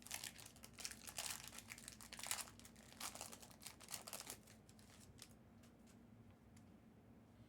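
Trading card pack wrapper crinkling and tearing as it is opened, in crackly rustles for about four seconds, then a few faint ticks as it settles.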